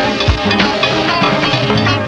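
Go-go band playing live: a bass line of held low notes under a steady beat of drums and percussion.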